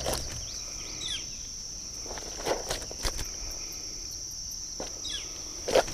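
A steady high insect drone, with a few knocks and rustles from the landing net and the netted carp on the unhooking mat. The sharpest knock comes near the end.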